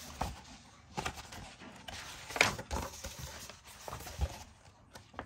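Pages of a paperback colouring book being turned by hand: a series of paper rustles and flaps, the loudest about two and a half seconds in.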